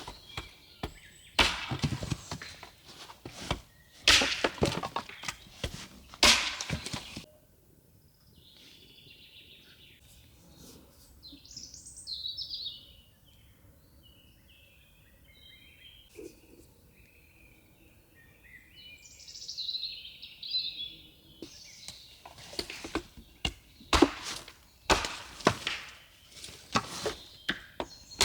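Irregular knocks and clatter of handling and work, loudest for the first seven seconds and again from about twenty-two seconds on, with a quiet stretch between in which birds chirp a few short calls.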